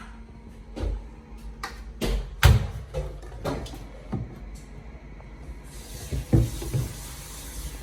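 A run of sharp clicks and knocks from a washing machine being handled, the loudest about two and a half seconds in, with a steady hiss starting about six seconds in.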